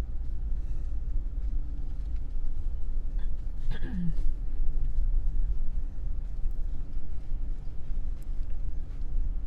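Vehicle interior road and engine rumble while driving slowly, a steady low drone, with a brief falling tone about four seconds in.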